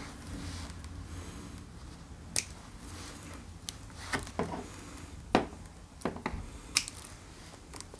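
Small pliers clicking and snipping as they work on thin wires and a plastic connector, with light handling of the wiring. The clicks come in an irregular string from about two seconds in, the sharpest past the middle and near the end.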